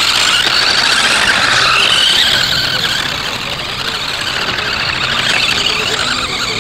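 Toy quad bike's small electric motor and gears whining as it drives, the high-pitched whine rising and falling in pitch.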